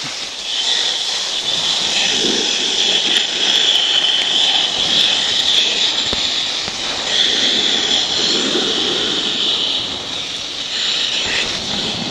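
Steady rushing hiss of a person glissading on snow, body and clothing scraping over the snow surface, a little louder through the middle.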